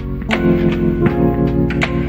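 Background music: sustained chords with a light beat of regular percussive hits.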